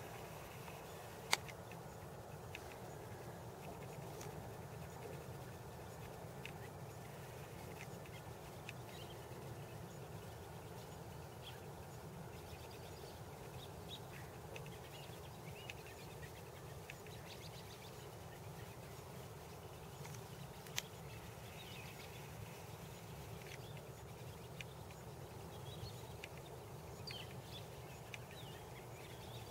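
Quiet open-air ambience: a steady low background rumble with scattered faint bird chirps, and two sharp clicks, one about a second in and one around twenty seconds in.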